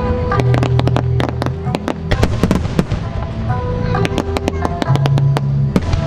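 Aerial fireworks shells bursting in a rapid string of sharp bangs and crackles, with music playing under them.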